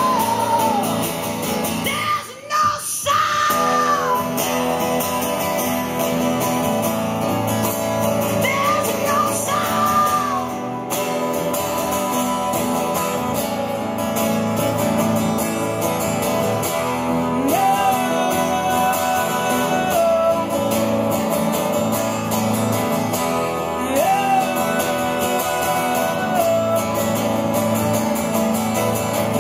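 Live acoustic music: two acoustic guitars strummed while a woman sings long, held notes.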